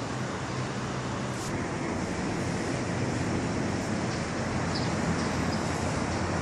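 Steady background noise: a constant, even rush with a faint low hum underneath.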